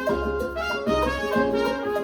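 Brass-led jazz music with horns and a pulsing bass line, played back through a 1995 Mission 761i loudspeaker.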